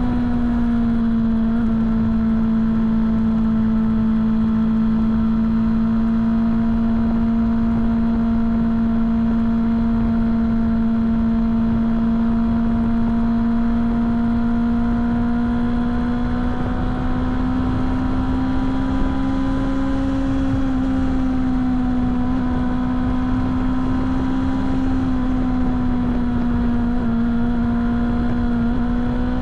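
BMW S1000 motorcycle's inline-four engine cruising at steady revs, with wind and road rumble underneath; the revs climb at the very end as the throttle opens.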